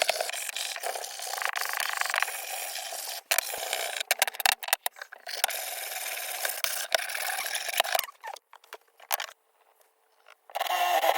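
Sandpaper rubbing on pinewood in hand-sanding strokes. The scratchy hiss comes in stretches, broken by short clicks and abrupt stops, and falls almost quiet for a couple of seconds near the end.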